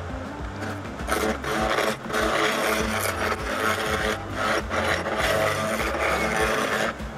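Turning gouge cutting a spinning wooden spindle blank on a wood lathe: a rough scraping hiss that starts about a second in and goes in stretches, with brief breaks. Background music runs underneath.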